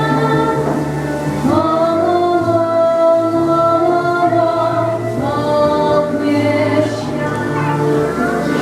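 A song: sustained sung melody over backing music with a bass line.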